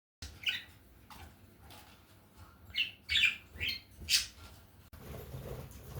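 Pet budgerigars chirping: a short squawky call about half a second in, then four quick chirps in a row around three to four seconds in.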